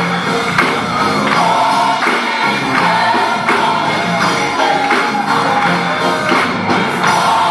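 Gospel choir singing an up-tempo song over live accompaniment with a steady percussive beat.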